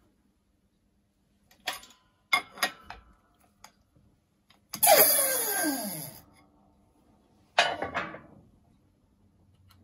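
Steel clicks and clanks from a hydraulic bench press as the pulley is pressed onto a classic-car water pump: a few short sharp clicks, then about five seconds in a loud metallic sound that slides down in pitch over about a second, and near the end a sharp metal clank.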